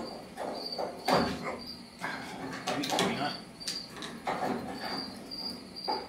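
Steel clunking and scraping as a hooked rod pries a thick round slug out of a hole plasma-cut in 1-inch steel plate, with several sharp knocks. A cricket chirps steadily behind it.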